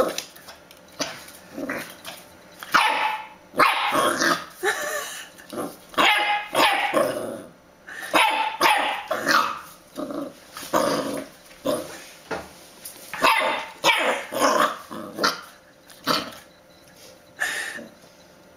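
Dachshund puppy barking over and over in short bursts with brief pauses between them.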